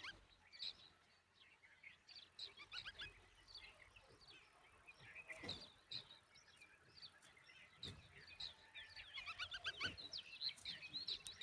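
Faint, busy chirping of small birds: many short high chirps in quick runs, thickening toward the end, with a couple of soft low knocks.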